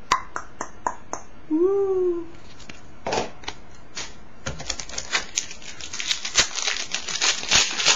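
A few sharp clicks early on as cards are handled, then from about four and a half seconds a dense run of crackling as a trading-card pack wrapper is torn open and crinkled.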